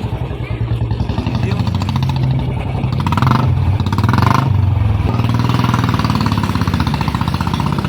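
Royal Enfield Bullet single-cylinder engine running through a newly fitted aftermarket silencer, a loud, fast exhaust beat; it gets louder about three seconds in as the throttle is opened a little.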